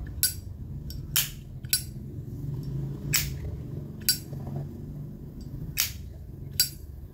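Vintage Zippo lighter's metal lid clacking open and shut, seven sharp ringing clinks at uneven spacing over a low background hum.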